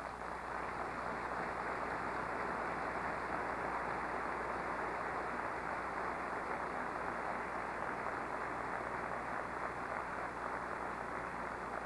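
Delegates applauding: many hands clapping at a steady level.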